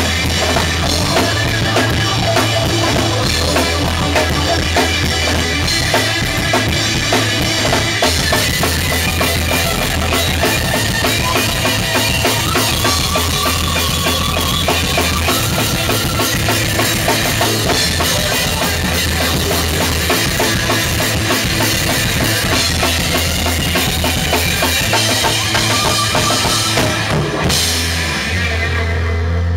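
Rock band rehearsal: a Tama drum kit played loudly, with bass drum, snare and constant cymbals, over held low electric guitar notes. About 27 seconds in the drumming stops and the guitar rings on.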